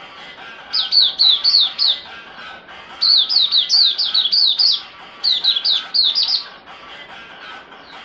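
Caged songbird singing three bursts of quick, high, down-slurred notes, each burst one to two seconds long, over faint background music.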